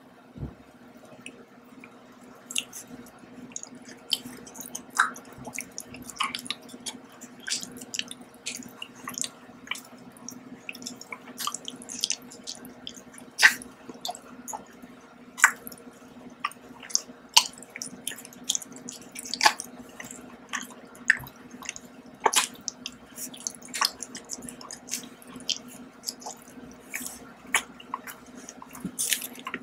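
Close-up eating sounds of a printed biscuit being bitten and chewed: irregular sharp crunches and wet mouth clicks, about one or two a second, over a steady low hum.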